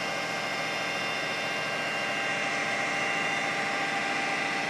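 A loud blower running steadily, an even rushing noise with a faint high whine held on top.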